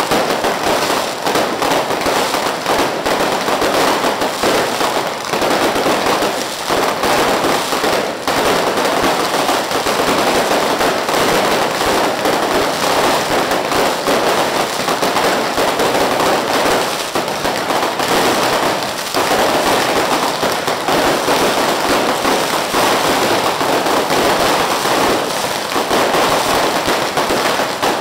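Celebratory fireworks going off: a loud, unbroken crackle of many small bangs in rapid succession.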